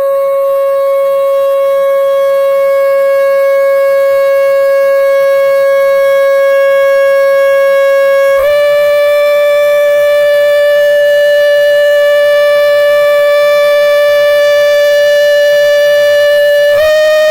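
A loud, steady held tone with many overtones, with no breaks. It steps up slightly in pitch about eight and a half seconds in and again near the end.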